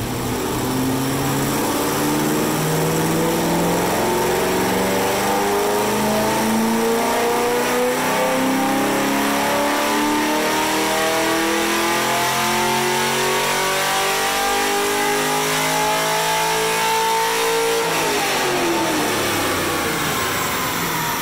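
Camaro SS's cammed 6.2-litre V8 making a wide-open-throttle pull on a chassis dyno: the engine note climbs steadily in pitch for about 18 seconds, then drops away as the throttle is lifted and the rollers coast down.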